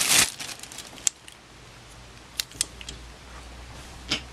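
Plastic zip-top bag crinkling briefly at the start, then a few isolated small sharp clicks spread over the next few seconds as bagged diecast toy cars are handled.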